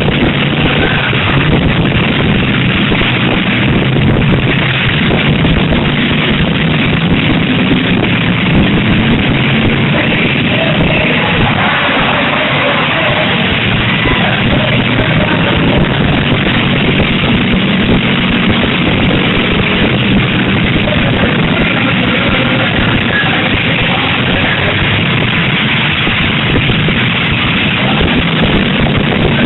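Loud rock music playing, mixed with the steady noise of demolition derby cars' engines running.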